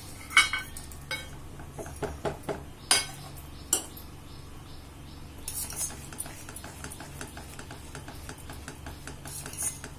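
Silicone spatula stirring and scraping thick almond paste in a non-stick pan, with a few sharp clicks of utensils against the pan as ghee is spooned in. Later comes a run of soft, quick ticks as the stirring goes on.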